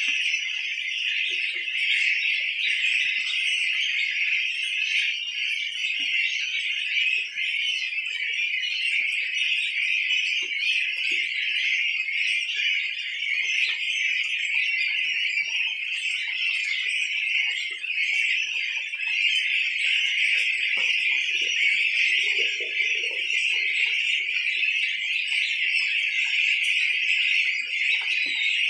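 A large flock of 18-day-old goslings peeping continuously: a dense, steady, high-pitched chorus of many overlapping calls.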